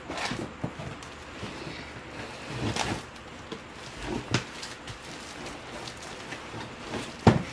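Plastic wrapping and a cardboard shipping box rustling and crinkling as items are rummaged out of the box, with a few light knocks and a sharper thump near the end.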